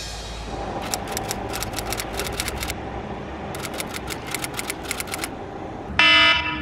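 Typewriter-style key clicks in two quick runs, one about a second in and another past the halfway mark. Near the end a smartphone alarm starts, a loud pitched beeping tone that pulses on and off.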